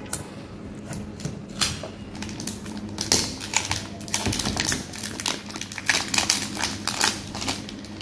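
Clear plastic wrap being peeled and torn off a new iPhone SE box by hand: a run of small crinkles and clicks, sparse at first and much busier about three seconds in.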